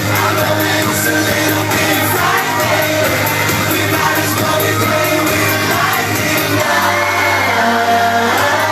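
Live pop band performance with singing, recorded loud from within the audience, with the crowd shouting along.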